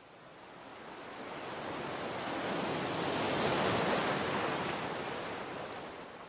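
A rush of noise, a wind-like whoosh, that swells up to a peak around the middle and then fades away.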